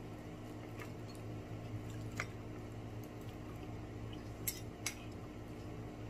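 A few light clicks of cutlery against a plate, four in all, the last two close together, over a steady low hum.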